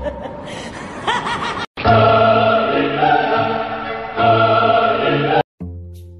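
Music: a choir sings a loud held chord for about three and a half seconds, which cuts off abruptly. Before it comes a short passage with rising pitch sweeps, and after it a brief new musical phrase begins.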